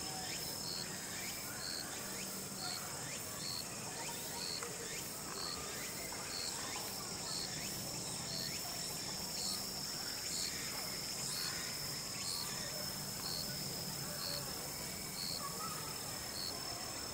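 Insects, most likely crickets, trilling steadily, with a short high chirp repeating about twice a second. Faint voices and a low steady hum sit underneath.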